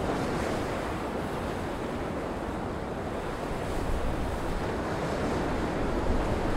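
Breaking surf and gale-force wind, with wind buffeting the microphone in gusts that grow stronger about two-thirds of the way through.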